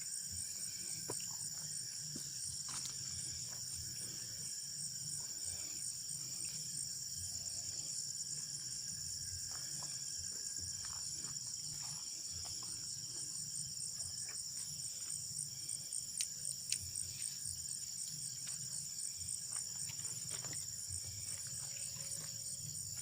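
Night-time chorus of crickets and other insects trilling steadily at a high pitch, one voice pulsing rapidly, with scattered faint clicks and two sharper ticks about two-thirds of the way through.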